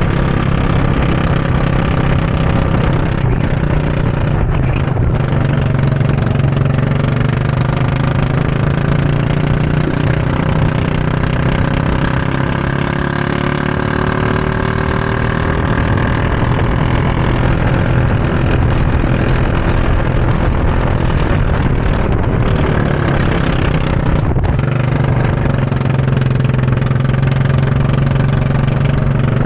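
Go-kart engine running loudly throughout at racing speed, heard from on board; its pitch rises and falls gently with the throttle through the corners.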